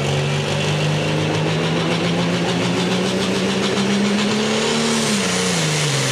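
Heavy Super Stock pulling tractor's turbocharged engine running flat out under load while pulling the sled, its pitch climbing slowly. About five seconds in, the revs fall away steeply.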